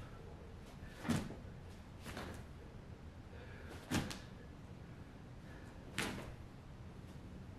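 Dull thuds of a person's hands and body landing on a carpeted floor during push-up reps, three strong ones and a weaker one, roughly two seconds apart.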